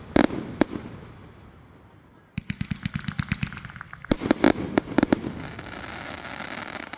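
Aerial fireworks exploding. A couple of loud bangs come in the first second and fade away. From about two and a half seconds in there is a rapid crackling string of small pops, with several loud bangs on top of it around four to five seconds in.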